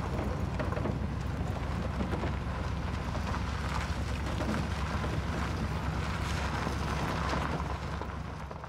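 Pickup truck driving along a dirt road, heard from its open bed: a steady low engine and road rumble with wind noise over it, fading out near the end.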